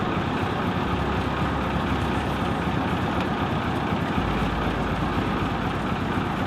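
Heavy vehicle engine idling steadily, a constant low rumble with no revving.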